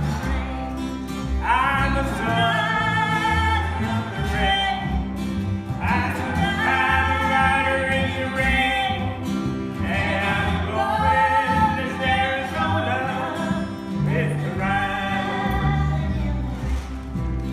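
Live country song: a voice singing long held phrases of a few seconds each over instrumental accompaniment.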